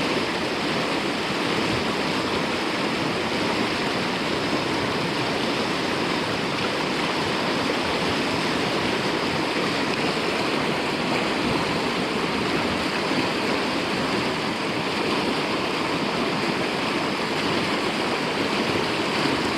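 River water rushing steadily over rocks, an even unbroken rush from a mountain river running high after heavy rain.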